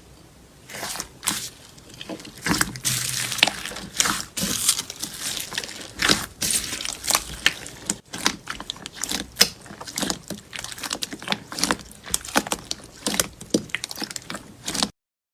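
Slime being squeezed and worked by hand, squishing with many irregular small wet pops and crackles; it cuts off suddenly near the end.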